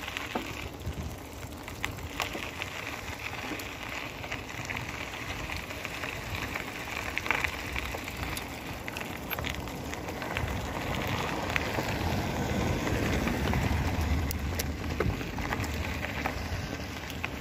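Bicycle riding noise: tyres rolling on a rough road with scattered small clicks and rattles, getting louder about ten seconds in.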